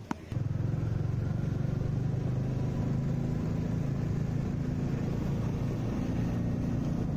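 A single sharp knock at the start, a cricket bat striking the ball, then a Royal Enfield 350 single-cylinder motorcycle engine running steadily at a low pitch while the bike cruises along the road.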